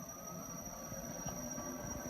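KingSong KS16 electric unicycle being ridden: low rolling rumble from the tyre and hub motor, with a thin steady high whine.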